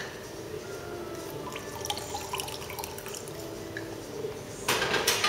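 Lime juice dripping into a mixing glass from a hand-held lime squeezer, with small clicks, then a louder burst of splashing for about half a second near the end.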